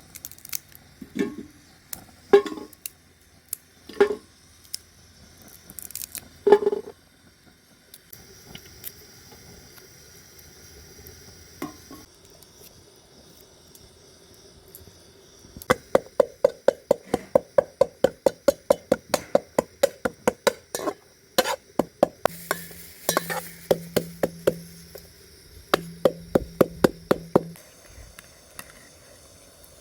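Cooking utensils striking cookware: a few separate knocks, then a long run of quick, even strikes, about four or five a second, each with a short ring.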